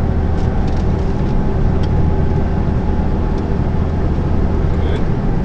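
Lorry's diesel engine and tyre noise heard inside the cab while cruising on a motorway: a steady low drone.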